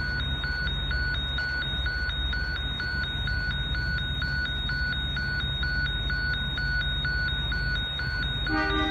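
Railway level-crossing warning bell ringing steadily at about two strokes a second while the boom gates come down, over a low steady rumble. A brief horn note sounds near the end.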